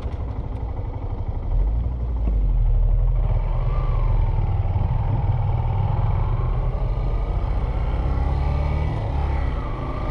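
Car driving along a road: steady low engine and road rumble, louder from about a second and a half in, with a faint whine that rises and falls in pitch.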